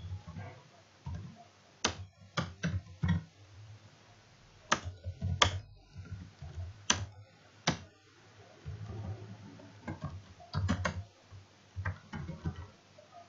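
Computer keyboard being typed on slowly: single, irregularly spaced keystroke clicks with short pauses between them, and a quicker run of keys near the end.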